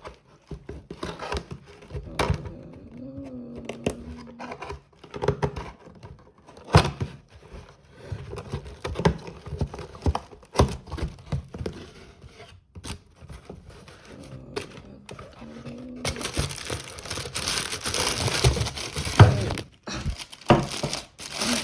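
Packaging being handled and opened: scattered knocks and taps, then about three-quarters of the way in a long stretch of crinkling and rustling of wrapping.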